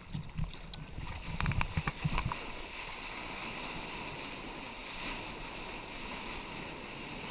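Water slapping and splashing against a camera held at the surface, then from about two and a half seconds in a steady rush of broken wave water and wind as the wave carries the surfboard along.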